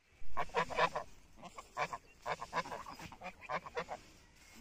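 Domestic geese honking: a quick run of short calls from several birds, loudest in the first second.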